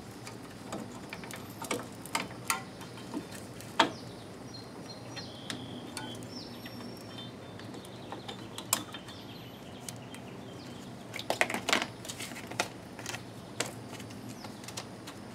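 Drum-brake hold-down spring, cup and pin clicking and clinking as they are worked onto the brake shoe with a hold-down spring tool. The clicks are scattered, with a quick run of them about eleven seconds in.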